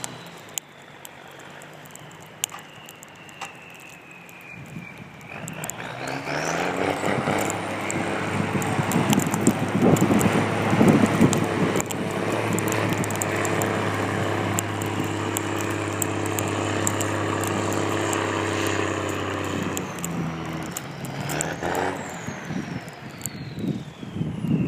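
M35A2 deuce-and-a-half army truck's multifuel diesel engine and drivetrain running. It builds up about five seconds in, holds loud and steady for some fifteen seconds, then falls back, with a thin high whine that drops at the start and climbs again near the end.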